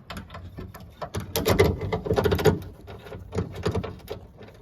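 Quick, irregular clicking and rattling of hand tools and metal latch hardware as the replacement trunk latch actuator's 10 mm bolt and ground wire are fastened. The clicks come in two busy clusters.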